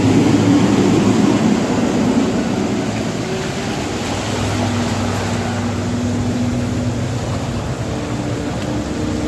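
Heavy multi-axle diesel goods truck driving slowly past at close range, its engine running steadily. Loudest in the first two seconds, easing a little as the truck moves on ahead.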